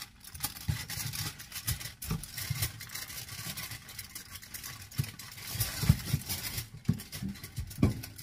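Aluminium foil crinkling and rustling irregularly as a dough log is rolled up tightly in it by hand, with a few soft knocks against the countertop.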